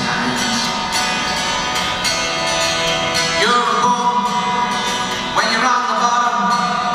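A man singing while playing a cutaway acoustic-electric guitar, with new sung phrases starting about three and a half and five and a half seconds in.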